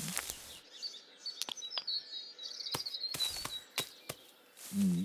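Small birds chirping, with several sharp clicks or taps. A short, low vocal sound comes at the start and again near the end.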